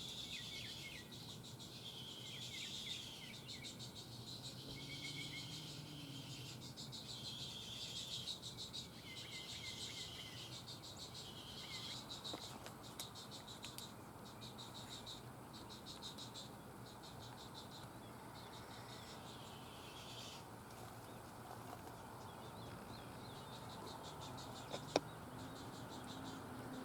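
Outdoor pond ambience with high, buzzy chirring calls in bouts of a second or two, thinning out after about twenty seconds. A single sharp click near the end.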